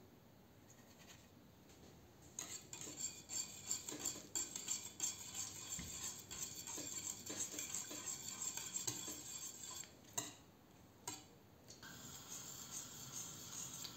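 Wire balloon whisk beating a yogurt mixture in a stainless steel pot, its wires scraping and clicking rapidly against the metal. It starts a couple of seconds in, stops briefly with two sharp clinks, then resumes as a smoother, steadier scraping.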